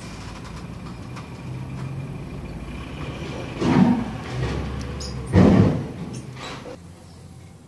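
A vehicle's engine running with a steady low hum, broken by two loud thumps about a second and a half apart; the hum fades away near the end.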